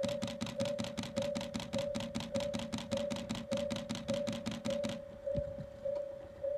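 Japanese railway level-crossing alarm sounding as the crossing closes for an approaching train: rapid, even clanging strikes at about six a second over a steady ringing tone that pulses. The strikes pause for about a second and a half near the end while the tone keeps ringing.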